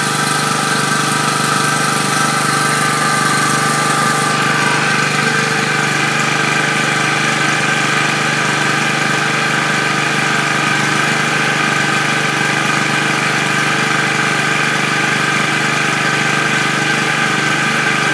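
Electric-start petrol generator running steadily under load, charging a 12 V battery bank after it has started automatically on low battery voltage. Its sound shifts slightly about four seconds in.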